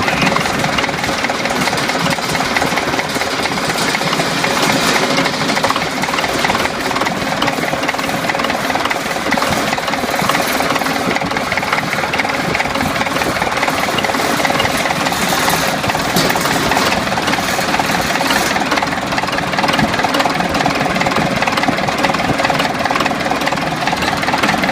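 DT-75 crawler tractor's SMD diesel engine running steadily with a knock. The owner places the knock at the top of the cylinder head, where the valves are, and not in the crankshaft or camshaft below.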